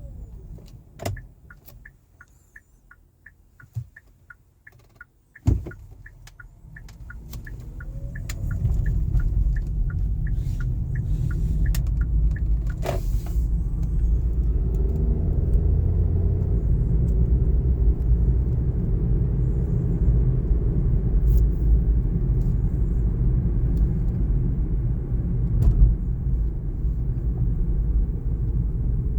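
Inside a 2019 Kia Niro: a couple of knocks and a light, regular ticking of about two or three a second, then the car moves off and a low road and drive rumble builds and holds steady.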